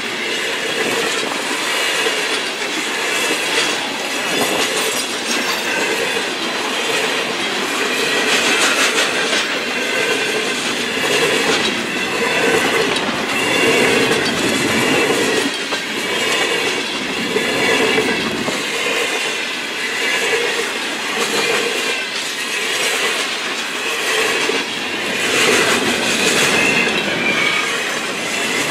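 Freight train cars rolling past close by at speed: a steady, loud rush of steel wheels on the rails with clickety-clack over the rail joints and some wavering wheel squeal.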